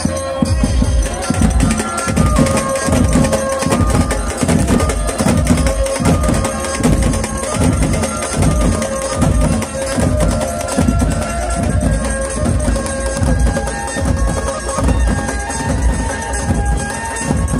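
Loud music with a heavy bass beat at about two beats a second and a melody over it, played through a big DJ sound system.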